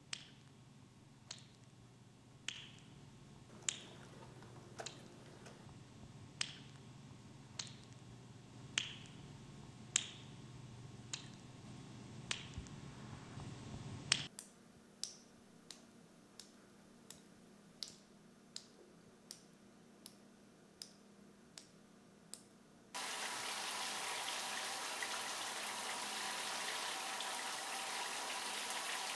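Water dripping, one drop about every second and a bit. After about 23 seconds steady running water starts abruptly and carries on.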